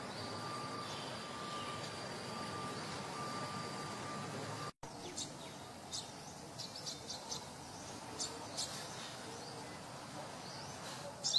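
Steady outdoor background hiss with a faint held tone, cut off for an instant about five seconds in. After the cut, a sogon gives many short, sharp chirps in small clusters, the loudest right at the end.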